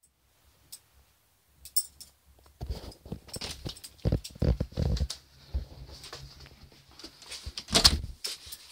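Scattered short knocks, shuffles and thumps of people moving about a small room, with one louder knock near the end.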